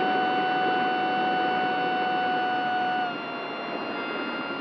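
Onboard sound of an Esky Eagles RC plane's electric motor and propeller in flight: a steady high whine over a rush of air. About three seconds in, the throttle is eased back and the whine drops in pitch and gets a little quieter.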